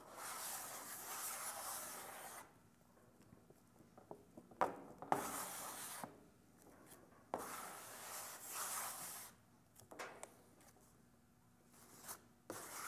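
Plastic spreader scraping and smearing polyester body filler across a mixing board, mixing the hardener through it. It comes in several scraping strokes of a second or two, with short pauses between them and a couple of sharp clicks about five seconds in.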